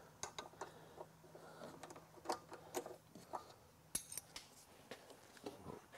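Scattered light clicks and metallic clinks of small engine parts and tools being handled, the sharpest clink about four seconds in.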